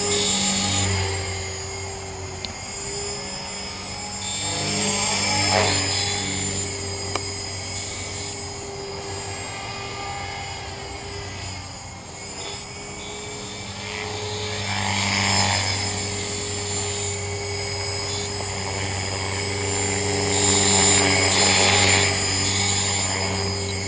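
T-Rex 450 electric RC helicopter in flight: a steady rotor and brushless-motor whine that grows louder and fades away about three times as it passes. A high squeal runs through it from a bad main bearing.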